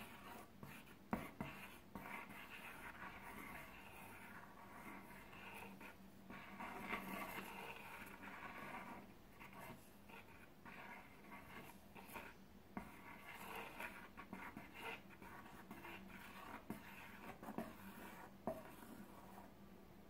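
A thin stick drawn round through chiffon cake batter in an aluminium tube pan, making faint scraping swishes against the pan wall and centre tube, with a few light clicks. The stirring breaks up air pockets so the cake bakes without holes.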